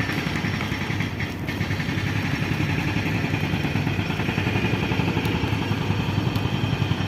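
Car engine and road noise heard from inside the cabin as the car turns around: a steady drone with a fast low pulsing.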